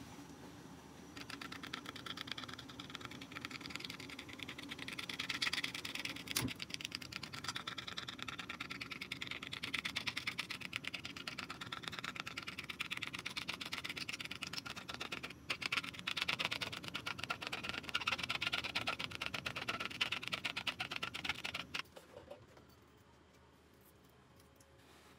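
A pin punching holes in aluminium foil stretched over a hookah bowl: a fast run of small ticks and crackles, with a brief pause partway through, that stops about 22 seconds in.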